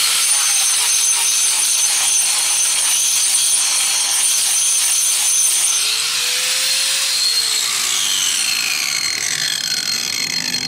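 Angle grinder with a diamond cup wheel grinding down a bulge on a concrete step, a steady loud grinding over a high motor whine whose pitch sags and recovers under load. From about six seconds in the whine falls steadily in pitch as the grinder winds down off the surface.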